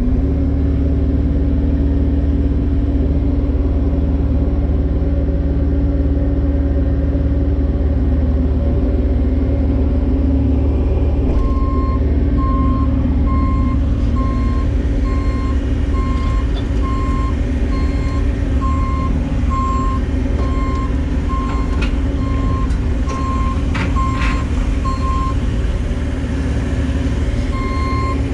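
Bobcat E42 compact excavator's diesel engine running steadily. From about eleven seconds in, a warning alarm beeps about once a second, with a short pause near the end. A couple of sharp knocks come in between.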